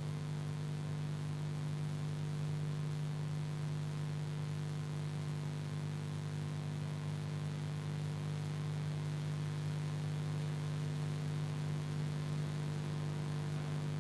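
A steady low hum made of a few unchanging tones over a faint hiss, with no change in pitch or level.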